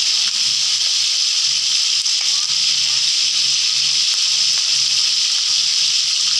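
Pieces of eel deep-frying in hot oil in a wok: a steady, loud sizzle with a few faint pops.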